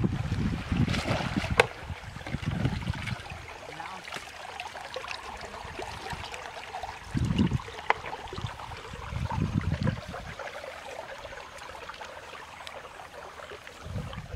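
Shallow water trickling and splashing as hands work in a small muddy ditch, with a few sharp ticks. Wind gusts rumble on the microphone several times.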